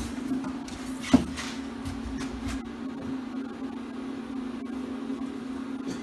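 Stepper motors of a DIY CNC plasma burn table humming steadily, with a sharp click about a second in and a few light knocks just after.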